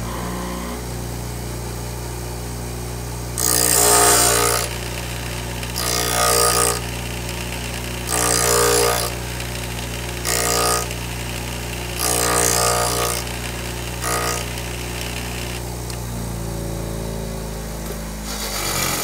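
Bench grinder motor starting up and running with a steady hum, while a twist drill bit held in a pivoting sharpening jig is swung against the grinding wheel about six times. Each short pass makes a harsh grinding rasp as the bit's cutting lip is ground, and the motor winds down near the end.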